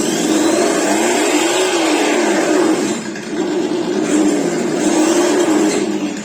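RC truck sound module playing a simulated engine through its small speaker: the engine note revs up and falls back once in the first two seconds, then runs on at a steady idle.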